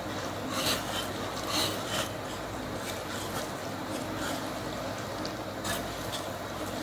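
Wire whisk stirring milk tea into flour and powdered sugar in a bowl: a wet rubbing and scraping, with a few sharper strokes standing out irregularly.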